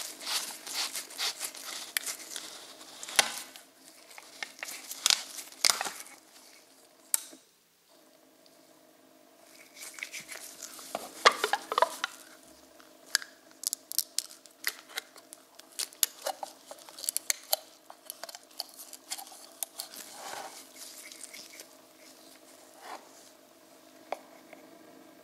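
Handling noises: crinkling and rustling with many light clicks and taps, over a steady low electrical hum. It breaks off briefly about seven seconds in, then the clicks resume more sparsely.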